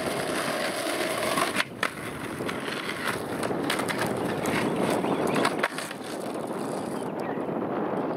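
Skateboard wheels rolling over rough pavement in a steady grinding rumble, with a couple of sharp clacks from the board about a second and a half in.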